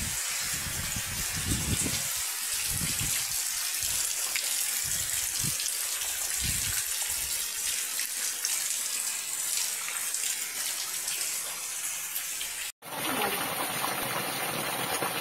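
Steady rain falling, an even hiss, with irregular low buffeting on the microphone during the first several seconds. About 13 seconds in, a brief dropout, then a similar steady hiss of water.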